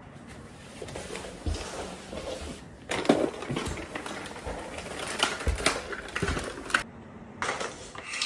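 Rustling with scattered clicks and knocks, getting busier about three seconds in and pausing briefly near the end.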